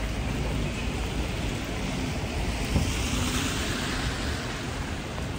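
Rainy city street ambience: a steady low rumble of traffic and wind on the microphone, with the hiss of tyres on wet road swelling and fading about three seconds in as a vehicle passes.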